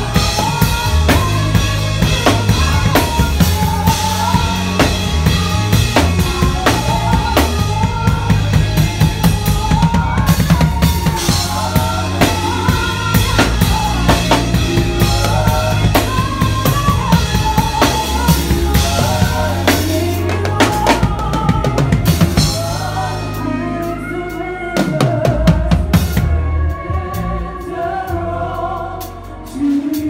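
Acoustic drum kit played live in a worship band: kick drum, snare and cymbals driving steadily over bass and keyboard. Near the end the drumming thins out to scattered hits.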